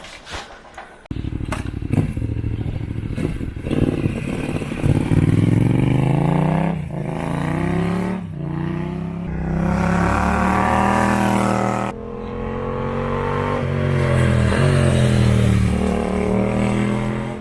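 Yamaha MT-07's parallel-twin engine running through a Musarri GP Street Series full stainless exhaust with its quietest baffle fitted. It is revved several times, the pitch climbing and falling, and cuts off abruptly at the end.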